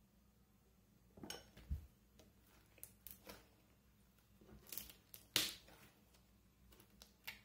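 Slime being squished and pressed by hand, giving a scattered series of small pops and crackles, the loudest about five seconds in.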